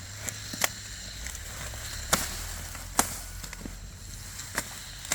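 Dry corn plants cracking as they are broken off during the harvest: about five sharp single snaps at irregular intervals, over a steady low hum.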